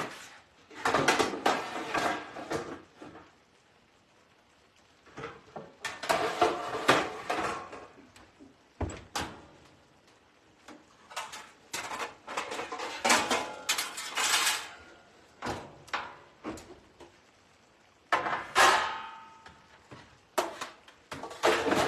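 Metal pans and baking trays clattering and knocking together as they are rummaged through and pulled out, in several bursts of rattling, with one pan ringing briefly near the end.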